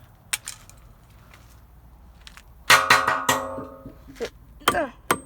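Hard junk being struck: a few light clicks, then a cluster of sharp knocks with a bright metallic ring lasting under a second, followed by short falling tones.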